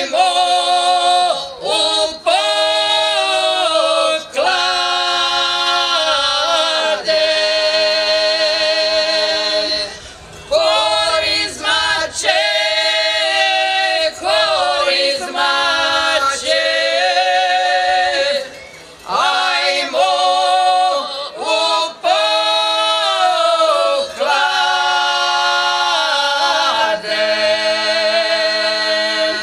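A group of women singing unaccompanied into microphones, long held notes with vibrato in phrases broken by short pauses.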